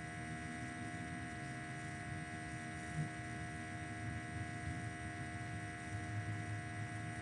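Steady electrical hum made of several constant tones, over a faint low rumble, with one soft thump about three seconds in.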